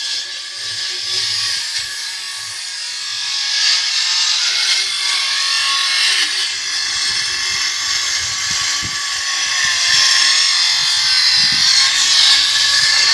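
Loud electrical noise from a coil-to-coil signal transmission setup: a harsh, wavering hiss with several steady high-pitched whining tones running through it, and a few irregular low thumps in the second half.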